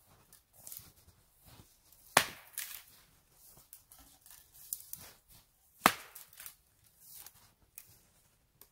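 Sticks and twigs snapping and crunching, with two loud sharp cracks, one about two seconds in and one about six seconds in, and smaller cracks between them.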